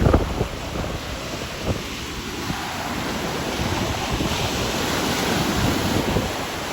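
Strong wind buffeting the microphone in irregular gusts, with surf breaking on the beach underneath, and a hard gust right at the start.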